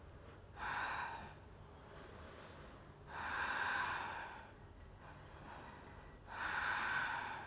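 A woman breathing audibly while holding a yoga bridge pose: three slow breaths of about a second each, roughly three seconds apart.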